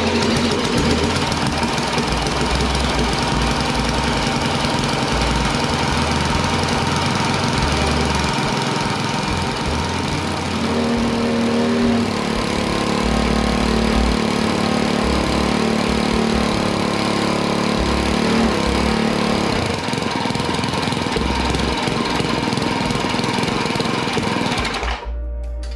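Tecumseh TVS90 single-cylinder four-stroke lawn mower engine running steadily on the mower deck with no blade fitted. Its note changes between about ten and twenty seconds in, and the sound cuts off suddenly near the end.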